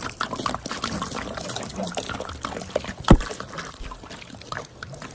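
Water pouring and trickling, with many small splashes and drips, and one sharp knock about three seconds in.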